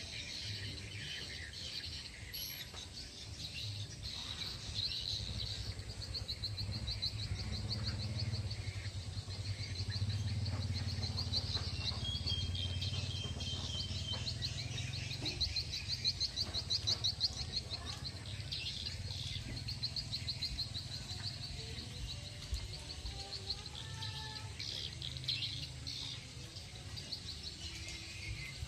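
Outdoor chorus of birds chirping and insects trilling in rapid pulses, over a low steady rumble.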